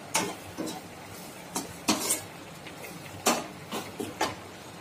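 A slotted steel spatula scraping and knocking against a nonstick kadai while stirring grated coconut and dried red chillies as they roast, in about seven irregular strokes.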